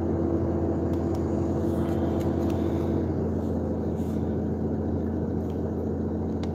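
Steady engine and road noise heard inside a moving vehicle's cab, a continuous low hum; one humming tone in it drops away about three seconds in.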